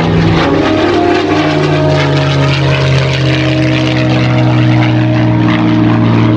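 Packard-built Rolls-Royce Merlin V-12 engine of a P-51D Mustang, with its propeller, running steadily in flight. The engine note drops a little about a second in, then holds steady.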